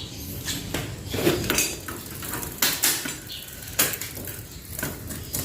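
Mountain bike drivetrain clicking and clinking as the gears are shifted, the chain moving over to the smallest front chainring: a string of separate sharp metallic clicks.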